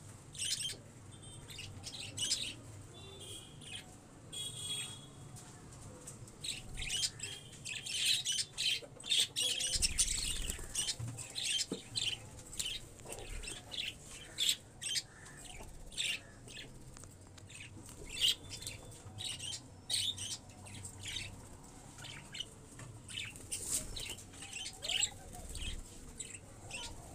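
Chickens chirping: many short, high chirps in quick succession, busiest near the middle.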